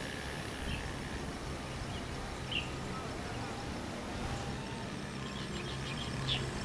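Steady outdoor background rumble, like open-air roadside ambience, with a few short high bird chirps: one early, one about two and a half seconds in and one near the end.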